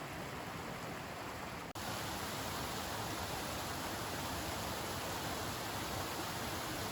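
Steady rush of a mountain river flowing over rocks, an even wash of water noise. It breaks off for an instant a little under two seconds in and carries on slightly louder.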